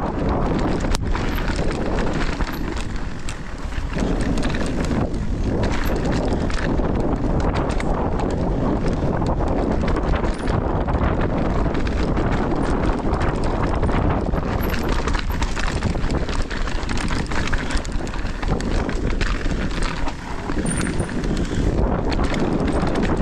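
Mountain bike rolling fast down a dirt singletrack: steady tyre and trail noise with many small knocks and rattles from the bike over the bumpy ground, mixed with wind rushing on the microphone.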